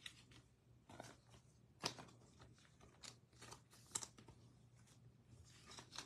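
Faint, scattered clicks and taps of trading cards being handled and set down, about seven in all at irregular intervals, over a low steady hum.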